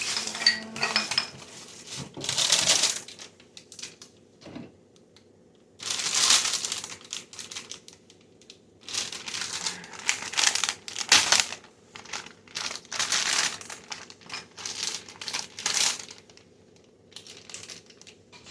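Jars, bottles and plastic-wrapped food being handled and set down: clinks, knocks and crinkling in irregular bursts with short pauses between them.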